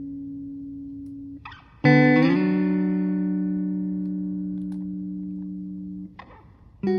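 Background music: guitar chords, each struck and left to ring out and fade slowly, with a new chord about two seconds in and another at the very end.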